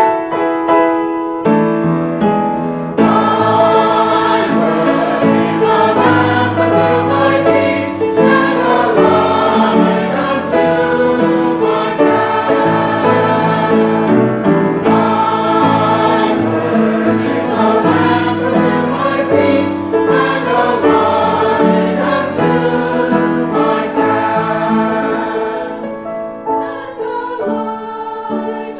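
Choir singing sacred music; it grows quieter near the end.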